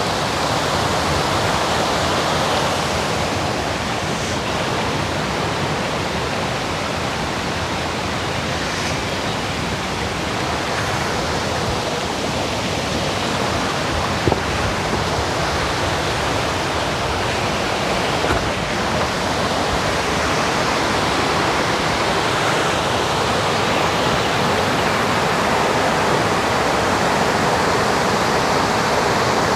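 Waterfall rushing steadily, a constant loud wash of falling water. A brief click sounds once about halfway through.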